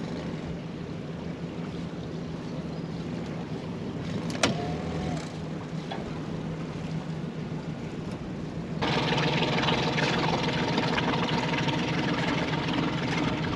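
Suzuki 60 hp four-stroke outboard motor running steadily at low speed, pushing the boat along with water rushing past the hull. About nine seconds in the engine sound jumps louder and brighter.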